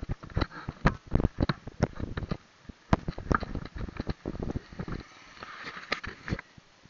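Irregular knocks, thumps and rustles of a handheld camera being jostled and handled while on the move; they stop shortly before the end.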